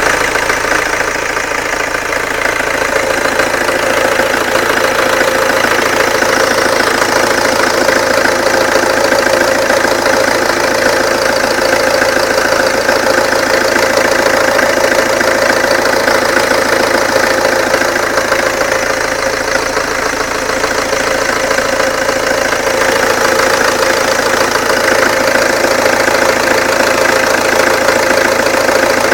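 Peugeot 307 2.0 HDi 90's four-cylinder common-rail diesel engine idling steadily with a fast, even ticking clatter, the noise its owner finds strange.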